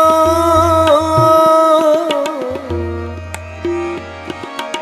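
Ghazal accompaniment between sung lines: a held, wavering melodic note that fades about two seconds in, over tabla-style hand drumming with a steady run of low drum beats.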